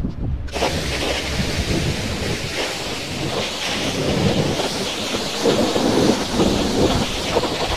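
Pressure-washer lance spraying the wheels of a truck: a steady hiss of the jet with splashing water, starting about half a second in.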